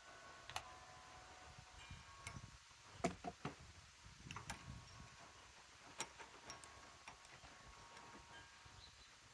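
Sparse metallic clicks and taps from hand tools as a bolt is set up to be tightened with a torque wrench, some of them ringing briefly. A quick run of clicks comes about three seconds in.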